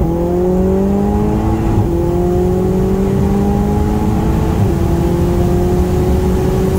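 Audi TTS's turbocharged 2.0-litre four-cylinder through a Milltek cat-back exhaust and downpipe, heard from inside the cabin while accelerating. A shift up right at the start drops the engine note, which then climbs slowly in pitch, with slight dips about two and five seconds in.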